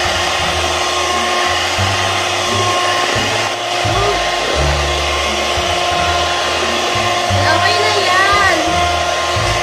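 Electric hand mixer running at a steady speed with an even whirring hum, its beaters whisking a liquid mixture in a plastic bowl.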